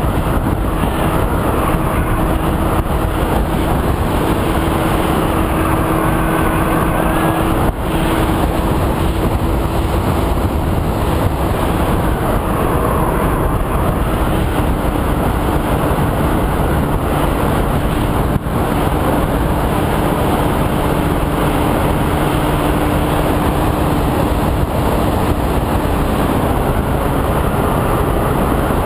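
Wind rushing over a GoPro camera riding on a flying Easy Star RC plane, with the faint steady drone of the plane's electric pusher motor and propeller underneath. The drone sinks slightly in pitch around the middle and fades near the end.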